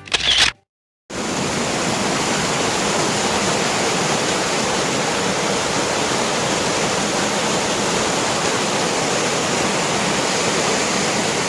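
Steady rush of a cascading waterfall, starting abruptly about a second in after a short gap of silence; a music track ends in the first half-second.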